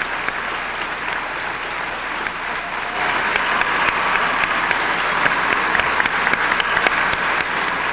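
Audience applauding in a hall, a steady mass of clapping that swells louder about three seconds in.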